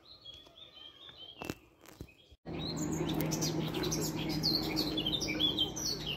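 Small birds chirping, faint at first; about two and a half seconds in, the sound cuts abruptly to a louder stretch of dense chirping over a steady low hum.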